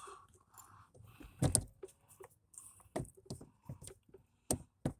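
Scattered sharp clicks and knocks with faint rustling, the loudest about a second and a half in: handling noise as the scan tool's cable and plug are brought to the OBD-II port under the dashboard.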